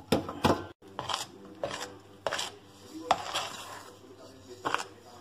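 A metal fork scraping and clinking against an enamel bowl as flour is worked into a dough, a string of sharp strokes roughly one or two a second.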